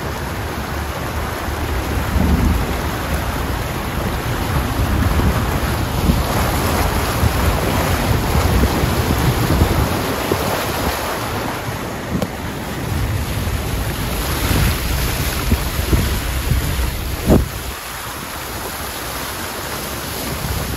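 A car's tyres ploughing through deep floodwater on a road, throwing up a continuous rushing splash of spray, with wind buffeting the microphone held out of the moving car's window.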